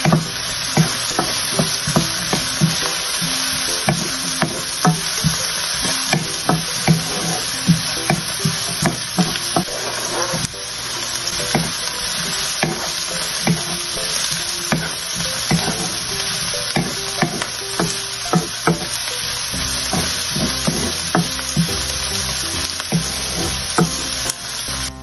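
Diced onions and bell pepper strips sizzling in hot oil in a wok-style pan, with a wooden spatula stirring and tapping against the pan about once or twice a second.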